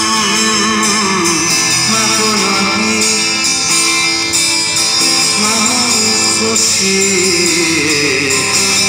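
Acoustic guitar strummed as accompaniment while a man sings a Persian song into a microphone, carried through a small amplifier.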